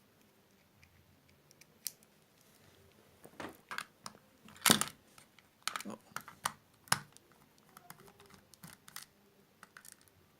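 Irregular clicks and taps of a small Phillips screwdriver, tiny screws and plastic parts as the ear-cup housing of a Bluetooth headset is unscrewed, with the loudest knock about halfway through.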